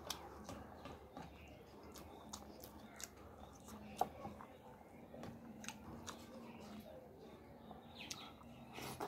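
Close-miked chewing and mouth sounds of a person eating rice and curried mutton by hand, with scattered small wet clicks and smacks, the sharpest about four seconds in.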